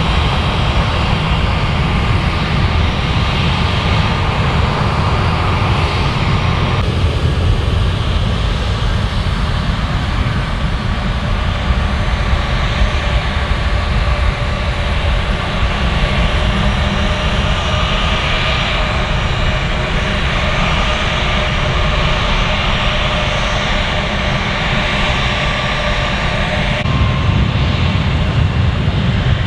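Boeing 757 freighter's twin jet engines running at taxi power: a steady whine with several held tones over a strong low rumble, shifting abruptly about seven seconds in and again near the end.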